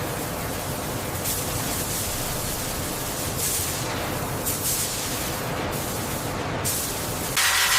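A steady rushing noise like hiss or spray, with no distinct pitch, swelling into a sudden louder surge near the end.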